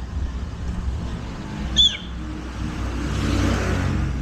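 Shineray Flash 250F motorcycle engine running at low speed, with a brief high chirp just under two seconds in and a swelling rush of noise over the last second and a half.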